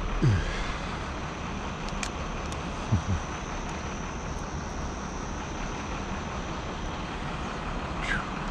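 Steady low rumble of distant urban background noise, like far-off traffic or aircraft, with a few brief falling squeaks: one just after the start, two about three seconds in, and a quick high one near the end.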